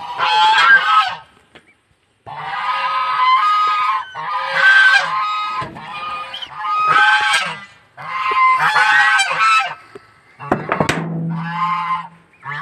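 Goose calling: a series of pitched calls, each about a second long, repeated every couple of seconds.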